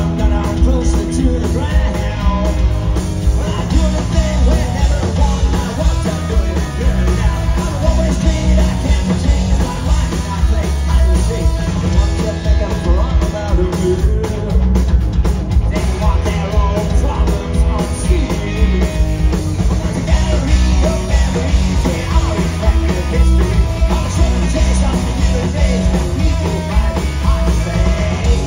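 Punk rock band playing live: electric guitar, bass and drum kit, with a male singer's lead vocal into the microphone.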